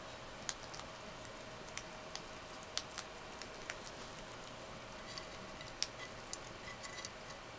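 African pygmy hedgehog chewing and licking food off a plate: scattered small sharp clicks at an irregular pace.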